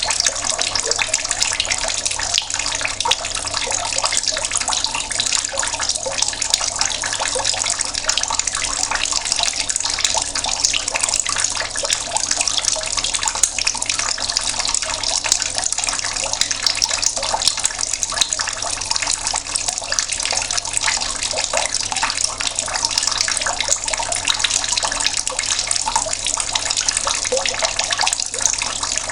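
Mains water running slowly from a tap in a steady, splashing stream.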